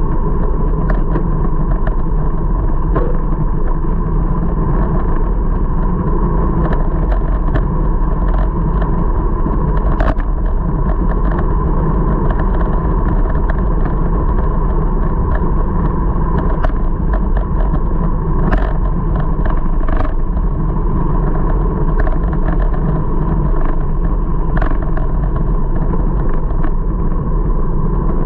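Steady wind and road noise from a camera mounted on a moving bicycle's handlebars, heaviest in the low end, with a faint steady hum and scattered small clicks and rattles as the bike rolls over the road surface.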